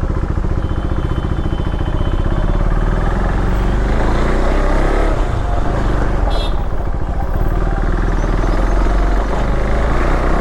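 Motorcycle engine running on the move, with a heavy low rumble of wind on the microphone.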